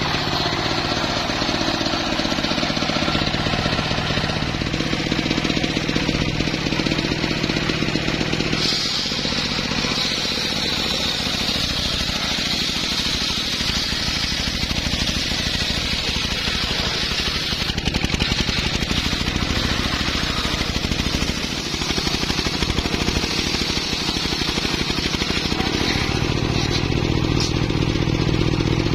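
Portable circular-saw sawmill: a single-cylinder diesel engine runs steadily, and its large circular blade spins and rips lengthwise through a teak log. From about a third of the way in, a hissing cutting noise rides over the engine. It eases off shortly before the end, leaving the engine and the free-spinning blade.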